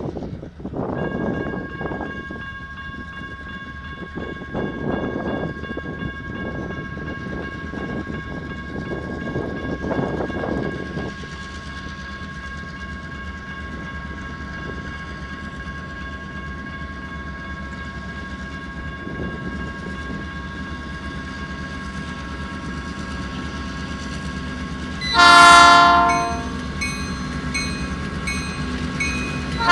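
A pair of EMD SD9 diesel-electric locomotives (16-cylinder 567 engines) approach with a steady engine drone. The multi-chime air horn sounds one loud blast about 25 seconds in, lasting about a second and a half, and a second blast begins right at the end.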